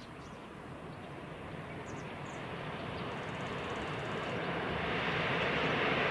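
A train approaching, its rumble growing steadily louder.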